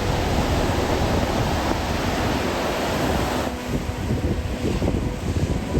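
Wind rushing over the microphone of a Kawasaki KLR650 riding at speed, with the bike's single-cylinder engine running steadily underneath. The wind rush eases off about three and a half seconds in.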